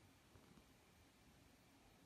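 Near silence: room tone with a few faint soft rustles.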